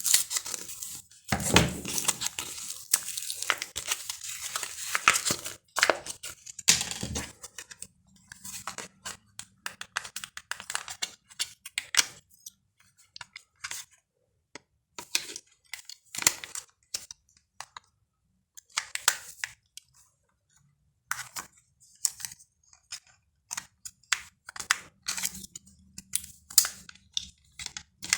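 Product packaging being torn open by hand, a dense tearing and crinkling for about the first seven seconds, followed by scattered short rustles and clicks as the packing is handled.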